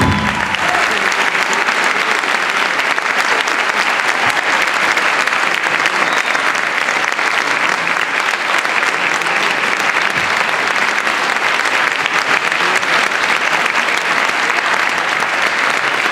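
Audience applauding steadily, a dense unbroken clapping.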